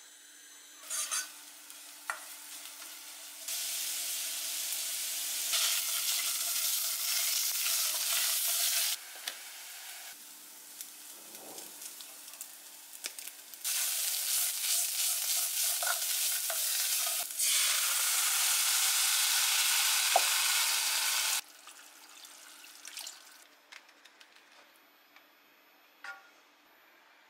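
Ground beef frying and sizzling in a pan as it is stirred. The sizzle comes in three long loud stretches, with quieter gaps holding a few clicks and knocks between them.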